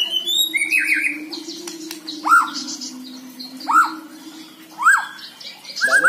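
A caged male white-rumped shama singing: loud, short whistled notes, each sweeping up and then down, coming about once a second.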